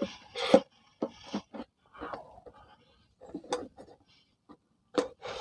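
A plastic toy-scooter wheel being fitted onto its metal axle rod: a scatter of short clicks, knocks and brief scrapes at irregular intervals as the parts are handled and pushed together.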